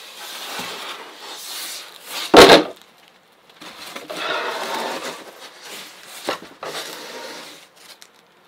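Cardboard box and packing material being handled and shifted, rustling and scraping, with one loud heavy thump about two and a half seconds in and a smaller knock later.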